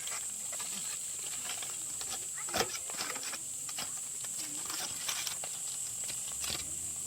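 Fish grilling, with scattered sharp crackles and pops over a steady high hiss; one louder pop comes about two and a half seconds in.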